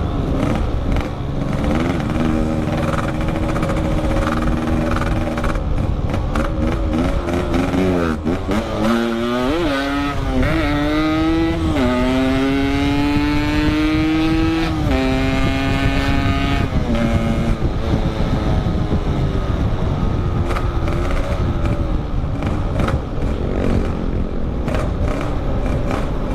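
Yamaha RX-King two-stroke motorcycle engine under hard acceleration: its note holds steady, then climbs in several rising sweeps through the gears around the middle, holds high, and drops back as the throttle eases, over a constant rumble of wind and road noise.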